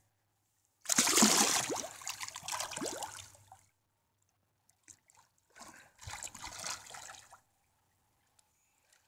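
Wels catfish splashing and churning the water at the surface as it swims off, in two bursts: a loud one starting about a second in and lasting a few seconds, and a shorter one around six seconds in.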